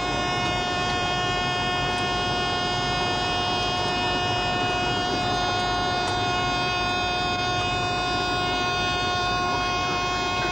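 Steady cockpit drone from an airliner flight simulator's sound system: continuous simulated engine and airflow noise with several steady high tones over it.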